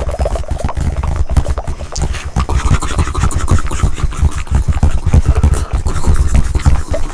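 Close-miked ASMR mouth sounds: a dense run of rapid clicks from tongue fluttering, over a heavy low rumble.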